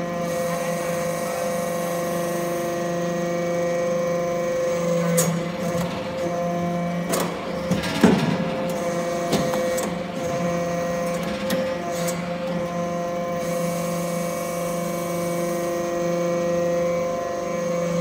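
Hydraulic metal-chip briquetting press running: a steady hum from its hydraulic power unit, broken by a few clanks and knocks as the ram cycles and briquettes are pushed out. The loudest knock comes about halfway through.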